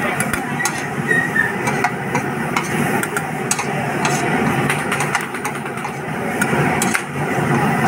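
Large steel spoons scraping and clicking against a wide flat steel griddle as masala sweet corn is tossed and mixed. The sharp irregular clicks sit over a steady low hum.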